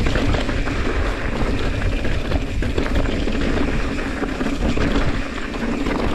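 Mountain bike riding rocky dirt singletrack: tyres rolling and crunching over dirt and stones, with the bike rattling over the bumps and wind buffeting the microphone.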